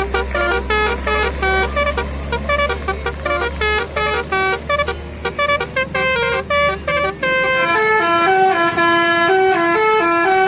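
Telolet-style multi-tone bus horn playing a tune, a quick run of held notes stepping up and down in pitch, with a low drone under roughly the first seven seconds.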